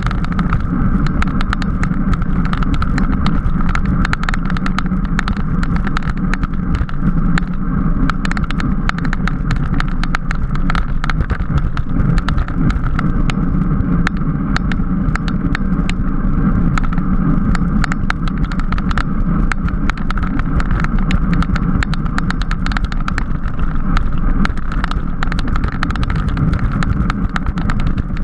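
Steady rush of wind on the microphone of a camera riding on a bicycle at race speed, with frequent small rattling clicks from the bike and mount over the road.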